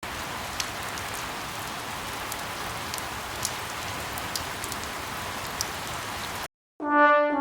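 Rain sound effect: a steady hiss of rainfall with a few sharp drip ticks. It cuts off about six and a half seconds in, and a brass sting begins just before the end, its notes stepping down in pitch.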